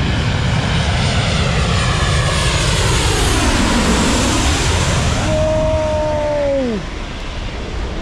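Lion Air Boeing 737 jet airliner passing low overhead on landing approach with its gear down. Loud jet engine noise with sweeping tones that bottom out as it passes over, about four seconds in. A whine then drops sharply in pitch and the noise eases off about seven seconds in.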